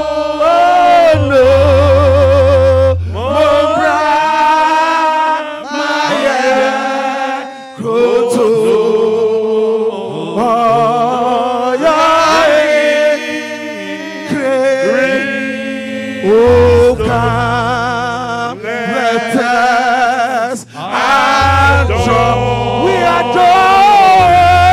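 Worship song sung in Twi, with voices wavering in vibrato over held low bass notes that drop in and out.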